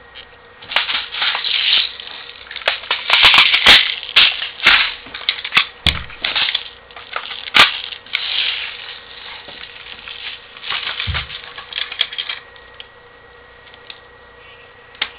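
Parts of a Crosman Stinger R34 airsoft rifle being handled and fitted back together: irregular clicks, snaps and rattling scrapes, with a few sharp louder clicks, tapering off near the end.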